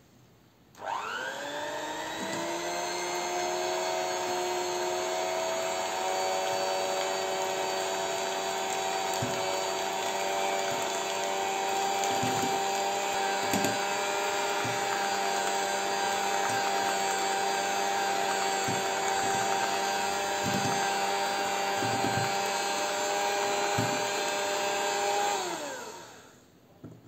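Philips electric hand mixer whisking eggs in a glass bowl: the motor spins up about a second in, runs at a steady whine, and winds down near the end. A few light knocks of the beaters against the glass bowl come through along the way.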